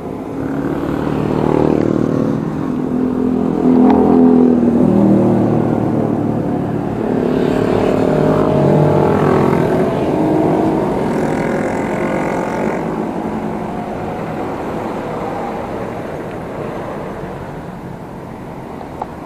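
Several motorcycles passing close by, their engines rising and falling in pitch as they go past in two waves, loudest about four seconds in, over a steady rush of road and wind noise.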